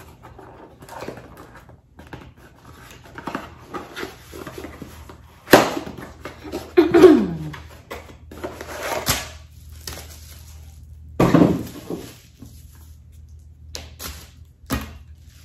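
A small cardboard box being opened and unpacked: scattered rustling and scraping of cardboard and plastic wrap, broken by several sharp knocks and clicks.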